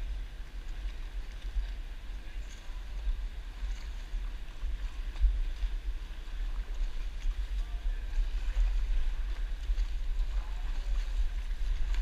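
Wind buffeting the microphone of a camera on a stand-up paddleboard, a low rumble that rises and falls throughout, over a faint wash of canal water.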